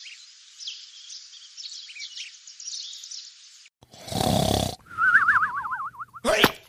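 Birds chirping, then a loud snore about four seconds in, followed by a wavering whistle that drifts down in pitch: a cartoon snore-and-whistle sound effect for a sleeping character. A few short sharp sounds come near the end.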